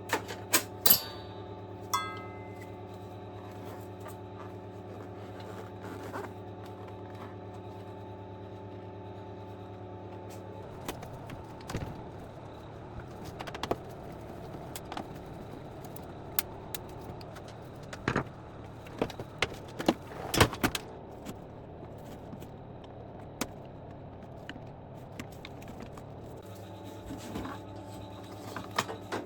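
Scattered clicks, knocks and scrapes of hard parts and tools being handled during the disassembly of an induction hob, over a steady low hum that drops away about eleven seconds in and comes back near the end.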